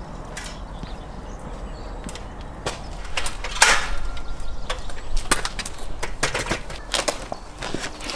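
Clanks and clicks of an aluminium folding ladder being handled and set up, with footsteps on paving. The loudest knock comes about three and a half seconds in, and irregular knocks follow until near the end.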